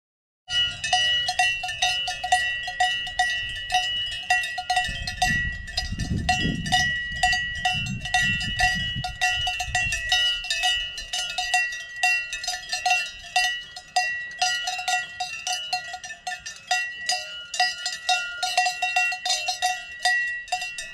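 Bells on grazing cattle clanking irregularly, several clanks a second, each ringing on. The clanking starts about half a second in, and there is a low rumble for a few seconds in the middle.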